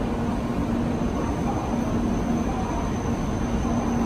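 Shinkansen train running with a steady rumble and an even low hum.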